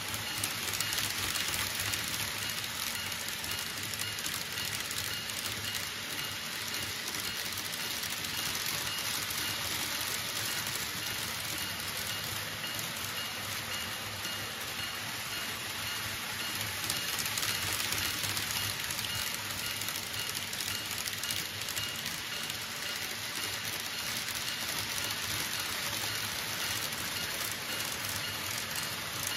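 Model trains running on the layout's track: a steady, even rattling hiss of wheels and motors, with a faint high whine.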